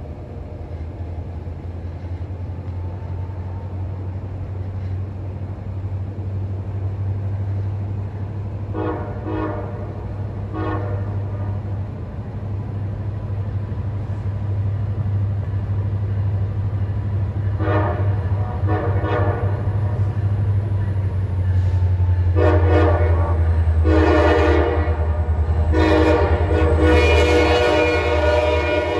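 Air horn of an approaching diesel freight locomotive blowing groups of blasts over the growing rumble of the train. The last and loudest group, two long, one short and one long, is the standard grade-crossing warning.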